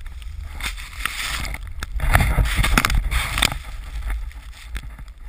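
Snowboard riding through deep powder: a rushing, hissing noise of the board and flying snow with wind buffeting the camera microphone, swelling loudest about two seconds in as the camera is buried in the spray. Scattered sharp clicks sound through it.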